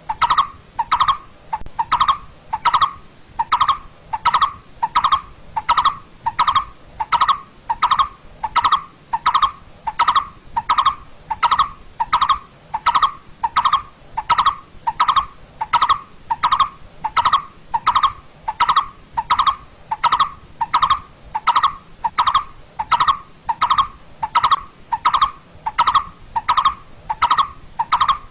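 Coppersmith barbet calling: a steady run of short, identical notes, about two a second.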